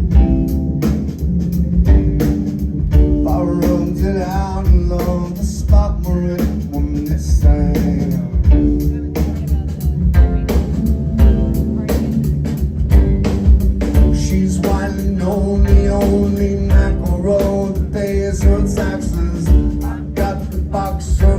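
Live band playing loudly, with a drum kit keeping a steady beat under a heavy bass line and guitar.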